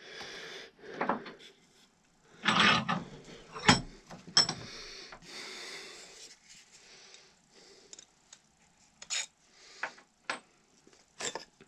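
Workshop handling noises as a bench vise is loosened and a flintlock and the vise's wood-and-tape padded jaws are lifted out: irregular knocks, clunks and small clicks, the loudest a few seconds in, then lighter clicks.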